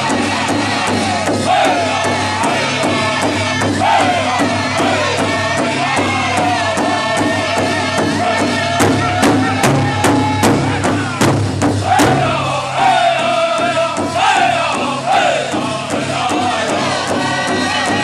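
Powwow drum group singing together in high voices while striking one big hide-headed drum in a steady unison beat. About halfway through comes a run of louder, accented strokes, with the sticks raised high.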